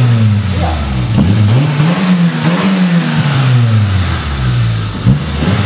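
Suzuki Swift's 1.3-litre G13BA four-cylinder engine with an aftermarket sport rear silencer, revving up and down several times, its pitch rising and falling.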